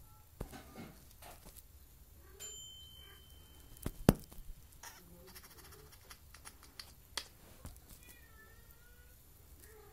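Maine Coon kitten mewing in short, high calls several times, with a few sharp knocks in between, the loudest about four seconds in.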